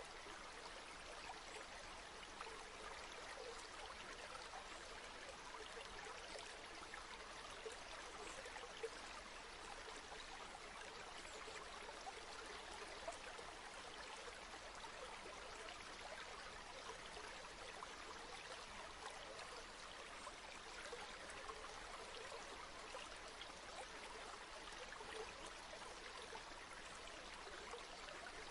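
River water flowing, a steady, even rush with a few brief small peaks.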